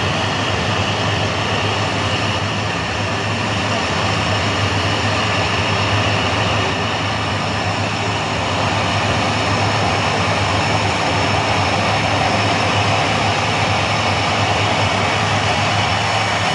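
Cessna 208 Caravan floatplane's Pratt & Whitney Canada PT6A turboprop running steadily at low power while taxiing, a steady high turbine whine over the propeller's rush.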